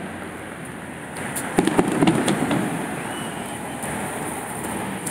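Aerial fireworks bursting: a quick cluster of sharp bangs about a second and a half in, followed by a low rolling rumble, over a steady background noise.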